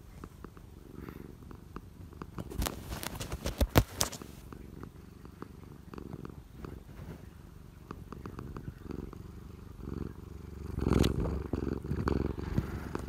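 Domestic cat purring right at the microphone, with scattered sharp clicks and rubbing as its paws and face bump the phone; the purring and rubbing grow louder about eleven seconds in.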